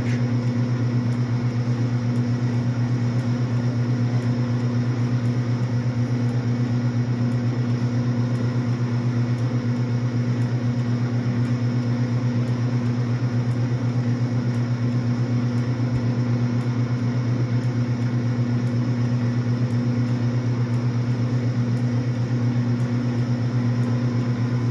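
Myford 254S geared-head lathe running steadily through a very fine power-feed finishing cut, a constant low hum of motor and headstock gearing that does not change in pitch or loudness.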